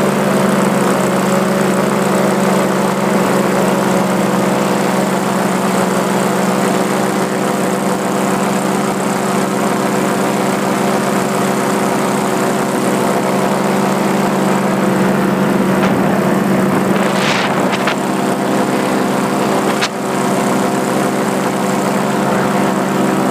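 Paramotor engine and propeller running steadily at cruise power in flight, heard from the pilot's position close to the engine. The drone holds an even pitch, with a short click about twenty seconds in.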